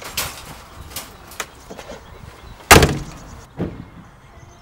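Light clicks and knocks of a wire dog crate being shut, then the rear door of a Land Rover Defender slammed shut with one loud thud about two-thirds of the way in, followed a moment later by a softer thump.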